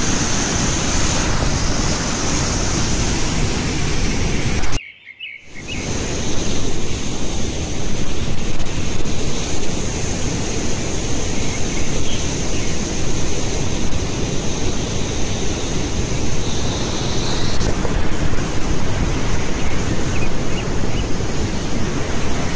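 Steady, loud roar of a large waterfall's rushing water. It cuts out for about half a second around five seconds in.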